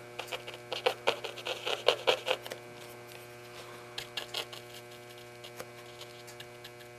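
Small paintbrush dabbing and stroking on a stretched canvas: a run of quick scratchy ticks in the first couple of seconds, then a few more scattered ones, over a steady electrical hum.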